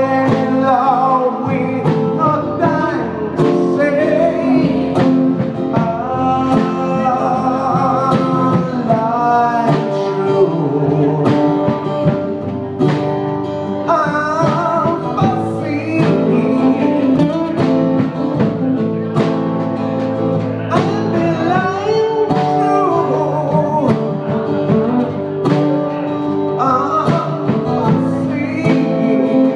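Live band playing: a man sings lead into a microphone over two strummed acoustic guitars and a drum kit keeping the beat.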